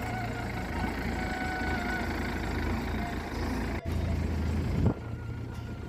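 Engine running steadily with a low hum, broken by a brief dropout about four seconds in.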